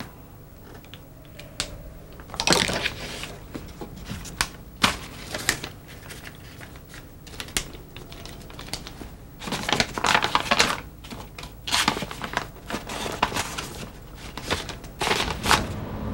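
Sheets of paper and photos being handled: irregular crackles, rustles and taps of paper being shuffled and folded, in small clusters.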